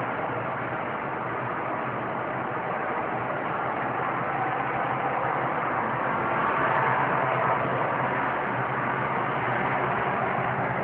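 Steady, even background hum and hiss with no distinct events.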